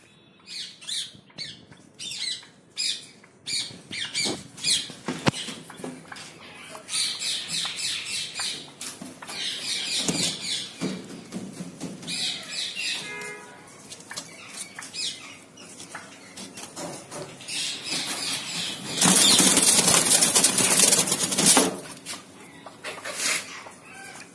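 Caged birds calling with short, high chirps, often in quick runs. About 19 seconds in comes a loud burst of wing flapping that lasts about two seconds.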